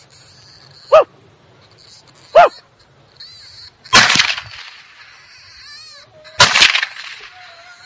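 Coyote distress sounds: two short, sharp yelps that rise and fall in pitch, then two loud, harsh screams about four and six and a half seconds in.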